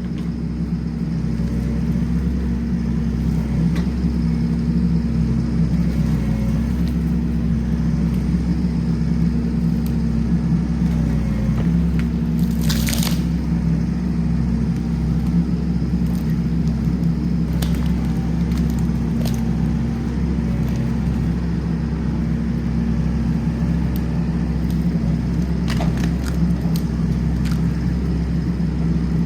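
Kubota SVL65-2 track skid steer's diesel engine running steadily under load, with a low rumble and a few sharp cracks, the loudest about halfway through.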